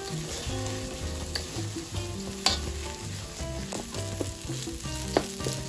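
Rice sizzling as it fries in a tomato sofrito in an enamelled steel paella pan, stirred and scraped with a slotted spatula: the rice being lightly fried before the stock goes in. Two sharp knocks of the spatula on the pan stand out, about two and a half seconds in and near the end.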